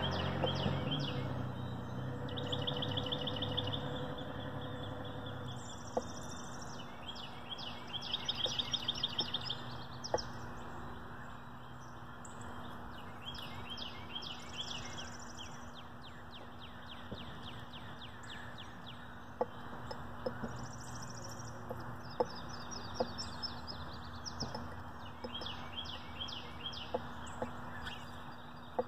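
Small birds chirping, with several rapid high trills, over a faint low hum. A few sharp taps stand out here and there.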